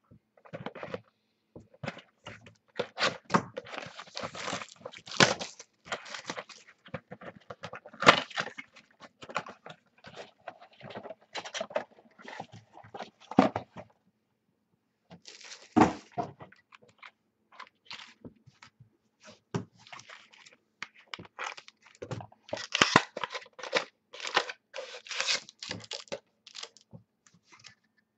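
Wrapping and packs of football trading cards being torn open and crinkled, with the cards and a plastic card holder handled: a run of irregular crackles and clicks, pausing for about a second around the middle.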